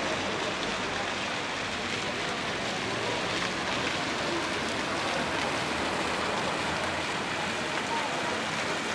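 Steady rushing and splashing of water from a large stone fountain.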